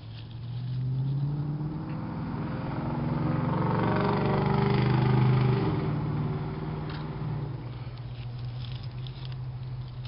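A motor vehicle passing: a low engine hum that grows louder to a peak about five seconds in, then fades away.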